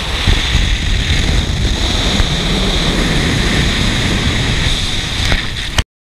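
Wind buffeting the microphone during a zipline ride, with a steady high whir over it that fits a trolley running along the steel cable. The sound cuts off abruptly to silence near the end.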